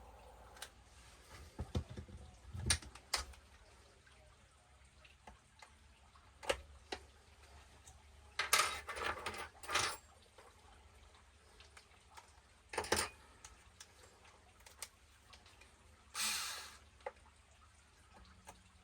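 Small metal tools and parts clicking and clinking on a workbench, with a few louder clattering knocks and a brief rushing burst about a second long near the end, as the grub screws are worked out of a heated pinion gear.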